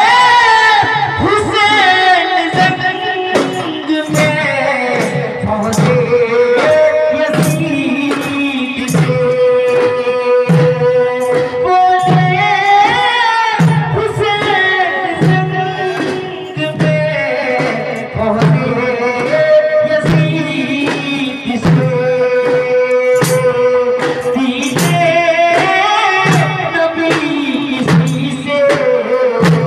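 A man singing a devotional Urdu manqabat for Husain through a microphone, with long drawn-out held notes. Frame drums keep a steady beat underneath.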